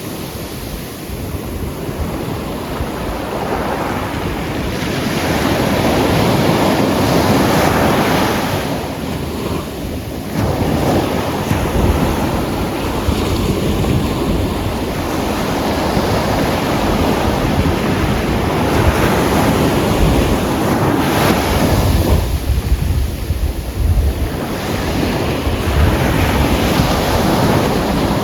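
Atlantic surf breaking and washing up a black volcanic sand and pebble beach, a steady rush that swells and eases with each set of waves. Wind buffets the microphone with a low rumble.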